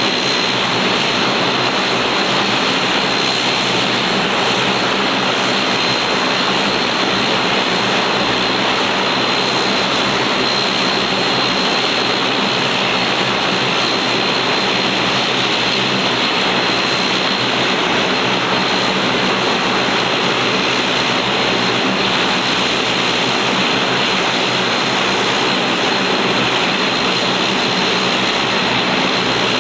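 Bombardier Q400 (DHC-8-402) turboprop's Pratt & Whitney Canada PW150A engines and propellers running steadily and loudly, a constant drone with a thin, steady high whine on top.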